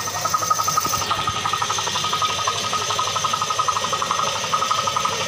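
A machine motor running steadily with a fast, even pulsing rattle and a high whine over it.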